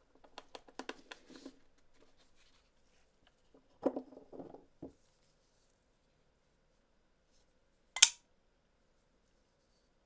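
Handling a wooden knife box with a metal clasp: a quick run of small clicks and taps, then a few dull knocks about four seconds in. About eight seconds in comes one sharp, loud click as the Damasteel folding knife's blade flips open on its ceramic ball bearings and snaps into its titanium lock.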